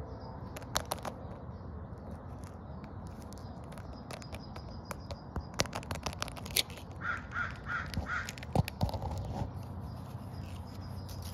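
A crow cawing four times in quick succession about two-thirds of the way through, over a steady low outdoor background, with a few sharp clicks earlier on.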